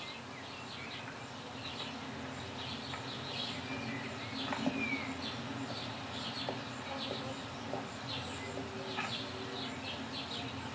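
Birds chirping in trees, many short high calls scattered throughout, with a steady low hum underneath.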